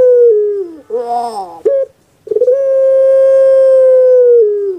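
Puter pelung (Barbary dove, Streptopelia risoria) cooing. A long drawn-out coo falls away, then comes a broken falling phrase and one short final note. After a brief pause, about two seconds in, a new long steady coo begins and starts to drop near the end.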